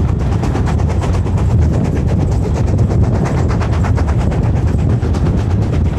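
Steam locomotive working hard, its exhaust beats coming fast and even over the low rumble of the train, heard from an open carriage window.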